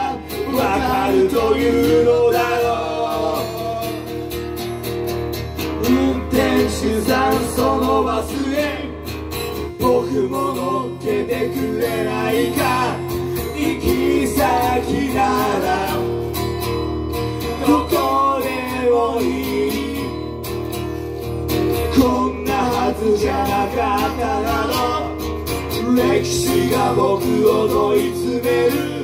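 Live acoustic guitar strummed with two men singing into microphones, one seated at the guitar and one on a handheld mic.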